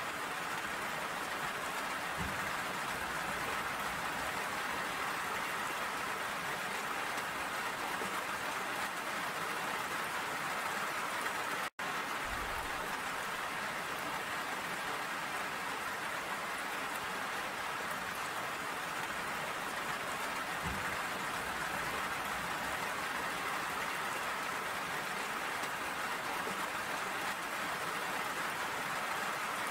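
Steady rain falling, an even hiss that cuts out for an instant about twelve seconds in.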